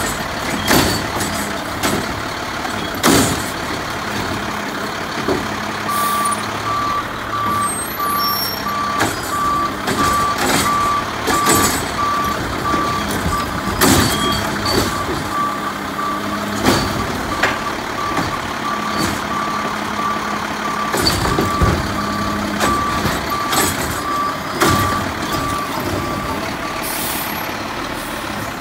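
Mack LEU garbage truck's diesel engine running while its Bridgeport Ranger automated side-loader arm lifts, dumps and sets down a 300-gallon cart, with sharp clanks and bangs of the cart and arm. A warning beeper sounds in a long run of evenly spaced short beeps from about six seconds in until near the end.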